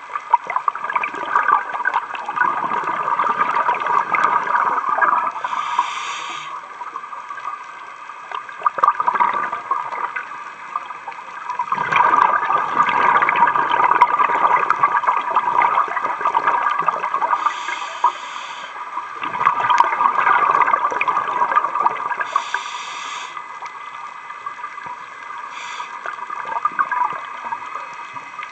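Scuba diver breathing through a regulator underwater: short hissing inhalations and long bubbling exhalations, repeated several times.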